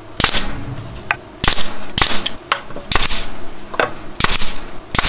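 Porter-Cable pneumatic 18-gauge brad nailer firing nails into a wooden beehive frame, a run of about six sharp cracks, mixed with knocks of the frame being turned over and set down.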